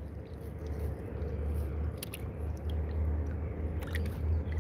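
Small wet sounds of water against a plastic kayak hull over a steady low rumble, with a few faint clicks.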